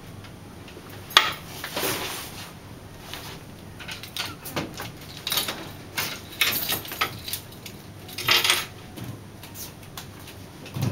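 Irregular slaps, thumps and scuffs of a barefoot dancer's feet and body striking and brushing the floor and fittings of a tiled changing room, with a sharp knock about a second in and another cluster of hits near the end.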